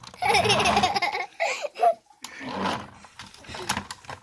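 A young child laughing in an excited, wavering burst, followed by shorter vocal sounds and a few sharp plastic clicks near the end.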